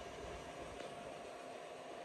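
Voxelab Aquila S2 3D printer running mid-print, its cooling fans making a quiet, steady whir.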